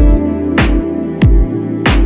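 Background music with a steady beat, about three beats every two seconds, under sustained tones.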